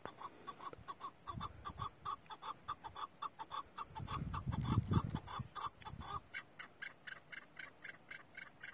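Chukar partridge calling in a fast, even run of short clucking notes, about five a second, that jump higher in pitch about six seconds in. A low rumble on the microphone rises briefly around the middle.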